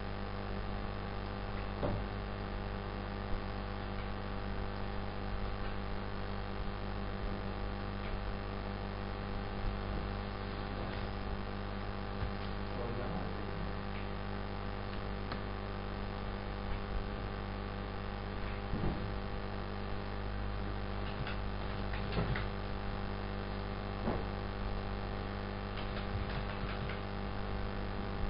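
Steady electrical hum, with a few faint clicks scattered through.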